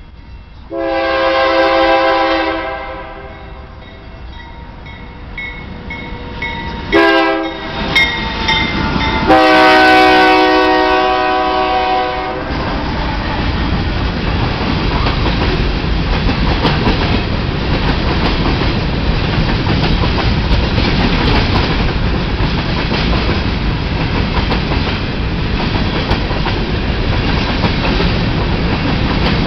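Diesel freight locomotive horn sounding a long blast, two short blasts and another long blast. Then the empty covered hopper cars of a unit grain train roll past close by, with a steady rumble and clatter of wheels on the rails.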